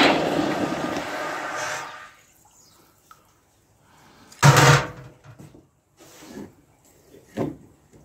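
Hot copper ingot quenched in a bucket of water, sizzling and boiling loudly, then dying away about two seconds in. About halfway through comes one loud clunk, followed by a few lighter knocks.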